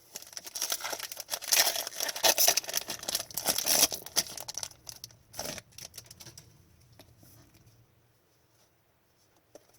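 Rustling and crinkling of hockey trading cards and a pack wrapper being handled, busiest in the first four seconds, with one sharp tap about five and a half seconds in.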